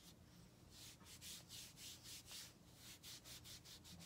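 A white wipe rubbed briskly back and forth over the bare skin of a forearm, wiping off eyeshadow swatches. The strokes are faint and come about three a second, starting after a short pause.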